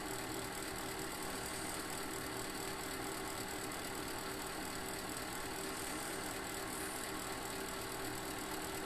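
Steady background hum with a few faint steady tones underneath, unchanging throughout.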